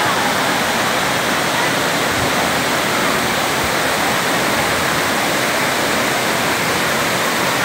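Waterfall: a steady, loud rush of falling water that stays even throughout.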